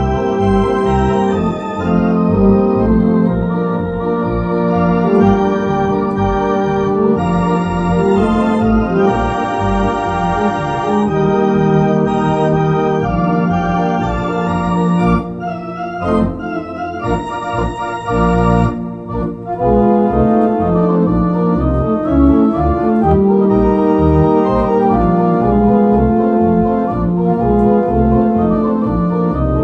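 Two-manual home console organ playing a military medley: sustained chords over a pulsing bass. About halfway through the sound thins out and drops for a few seconds, then the full sound returns.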